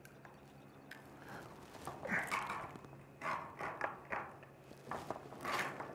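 Painted sheet-metal trim being bent up by hand with a hand tool: light scraping, creaking and flexing of the metal in several short, irregular bursts.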